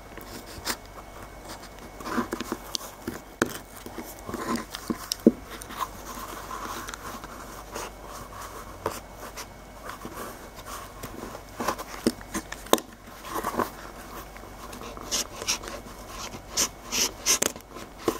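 Craft knife blade scraping and cutting along the seam of a BMW remote key's plastic shell, with irregular scratches and small clicks and a quicker run of clicks near the end.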